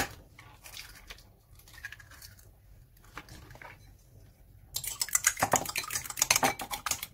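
A fork beating raw eggs in a ceramic bowl, starting about five seconds in: a fast, dense run of clicks as the tines strike the bowl. Before that there are a sharp tap at the start and a few faint handling sounds.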